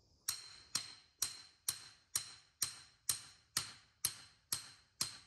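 Hammer striking a stake, eleven evenly spaced blows about two a second, each with a short metallic ring.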